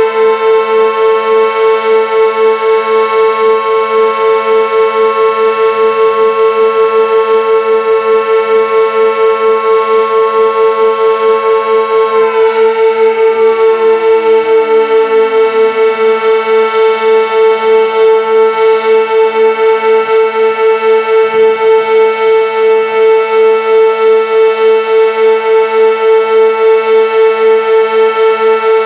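Sentry 16V1T-B outdoor warning siren sounding a steady full-alert tone with a fast pulsing beat. Over it, a second, smaller siren (the Federal Signal Model 2 on the fire station) finishes winding up right at the start, holds a slightly higher pitch, then winds down with a falling pitch from about twelve seconds in.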